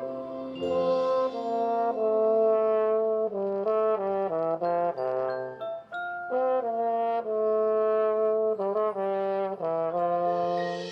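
High school marching band brass section playing full chords, held notes alternating with runs of short, quick notes, with a brief break about halfway through.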